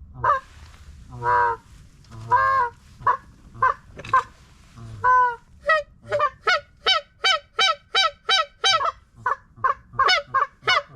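Canada goose call blown in loud honks: a few longer drawn-out honks first, then a fast run of short honks, about three a second, through the second half.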